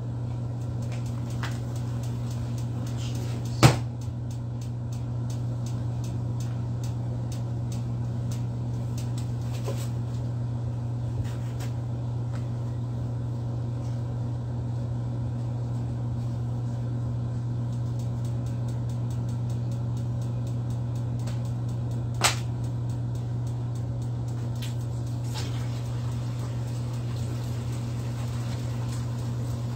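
Steady low hum of a running microwave oven. Two sharp knocks break it, the louder about four seconds in and another about 22 seconds in, with faint scattered ticks between.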